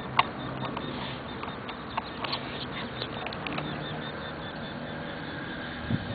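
Birds calling in many short, sharp notes, thickest in the first half, over a steady low background hum, with a low thump near the end.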